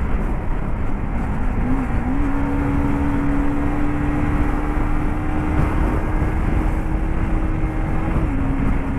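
Motorcycle engine running at road speed under a heavy rush of wind and road noise; its note climbs about two seconds in, holds steady, then drops slightly near the end.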